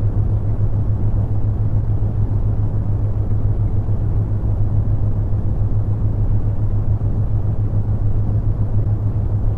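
Brown noise: a steady, deep rushing hiss weighted toward the bass, with a constant low hum near 100 Hz from the theta-wave tones mixed under it.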